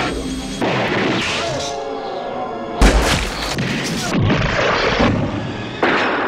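Horror film soundtrack excerpts cut together: dramatic score music with a deep, loud boom from an explosion effect about three seconds in.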